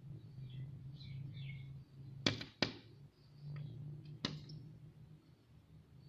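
Red-vented bulbul pecking at window glass in sharp taps: two close together about two seconds in, a fainter one, then another just after four seconds. The bird keeps striking the pane, which the uploader puts down to confusion at the shadow of a grape vine.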